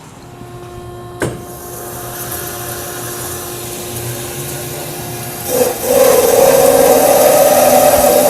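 BMT WK-500DSA horizontal metal-cutting band saw: a click about a second in, then the saw's motor and drive running with a steady hum. About five and a half seconds in, a much louder, rough grinding starts as the blade cuts into the stock.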